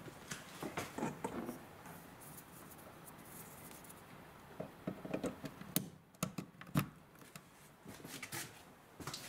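Faint scattered clicks, knocks and rustles of a power cord being handled and moved along a counter and wall framing, with a few louder knocks in the middle.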